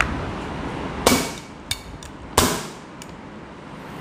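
Gamo C-15 CO2 blowback air pistol dry-fired with no BBs loaded, running on a freshly fitted 12-gram CO2 cylinder. Two sharp gas shots about a second and a half apart, with a lighter click between them.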